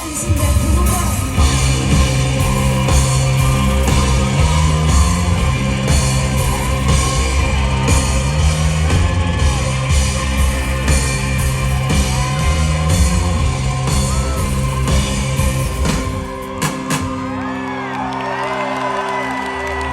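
Live indie-rock band playing loud through a PA, with driving drums and bass and shouted vocals. About sixteen seconds in, the beat and bass stop, leaving held synth or guitar tones while the crowd whoops as the song ends.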